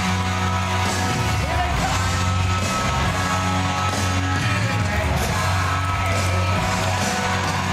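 Upbeat walk-on music with a strong steady bass, with whoops and cheering over it.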